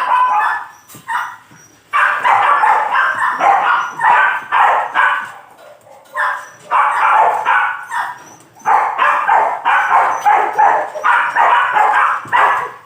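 A dog making quick, evenly repeated loud sounds, about three a second, in three long runs broken by short pauses.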